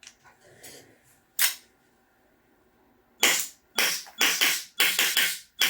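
KJ Works CZ Shadow 2 gas blowback airsoft pistol firing a quick string of about seven shots, each a sharp crack with the slide cycling, starting about three seconds in. A single sharp click comes about a second and a half in.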